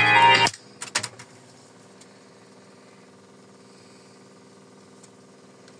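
Organ music playing back from an Astra MK-110S-1 reel-to-reel tape recorder cuts off abruptly about half a second in, followed by a few short clicks. After that the machine gives a faint, steady hum.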